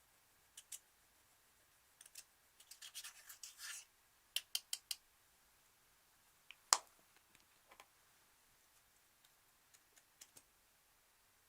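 Slime being handled, making scattered sharp clicks and pops. About three seconds in comes a second-long scratchy crackle, then a quick run of four clicks, then the loudest single pop near the middle.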